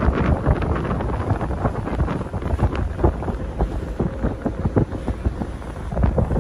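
Wind buffeting the microphone on the open deck of a ship under way: a heavy, uneven gusty noise.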